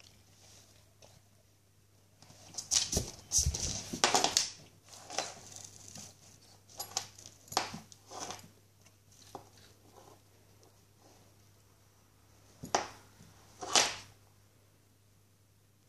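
Rottweiler sniffing and snuffling with its nose at a carpeted cat tree, a series of short breathy puffs with pauses between them, and a low bump about three seconds in.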